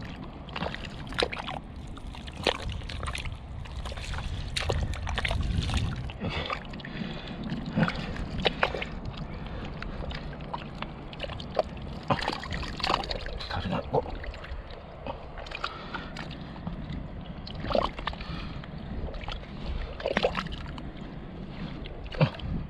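Wet mudflat mud being dug out by hand: irregular squelches, slaps and sloshing of mud and seawater as a burrow is opened to reach a mud octopus.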